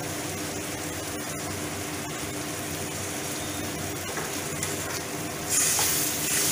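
Tomato-chilli masala sizzling steadily in a metal kadai, with a dollop of yogurt just added. About five and a half seconds in, the sizzle grows louder as a spatula starts stirring the yogurt into the hot masala.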